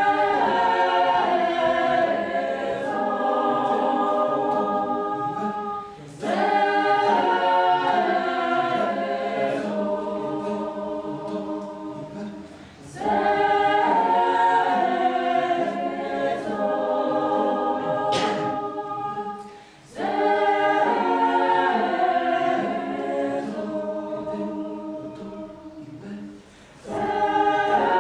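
A choir singing held chords in phrases of about seven seconds. Each phrase starts suddenly and fades away, and a new one begins four times over.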